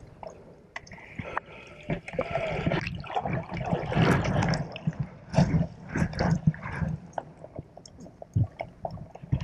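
Muffled underwater gurgling and sloshing from a snorkeler swimming, with many irregular clicks and knocks and swells of churning water.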